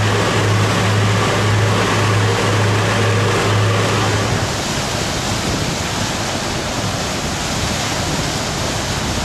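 Steady rush of churning river water along a moving ship's hull, with a strong steady low hum that cuts off suddenly about four seconds in, leaving the water rush and a little wind on its own.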